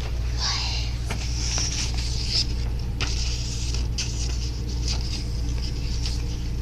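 Paper rustling and being creased in short bursts, over a steady low hum.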